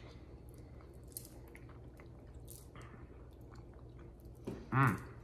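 A person chewing a bite of dill pickle, with faint scattered clicking mouth sounds, then a short, loud 'mmm' near the end.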